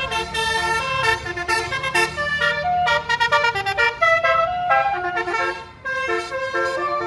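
Basuri telolet multi-tone bus horn playing a quick melody, many short held notes stepping up and down in pitch, with a low engine hum underneath and a brief break near the end.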